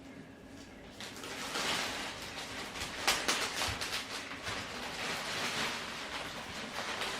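Irregular rustling and crinkling from handling a freshly unboxed houseplant and its packing material, starting about a second in.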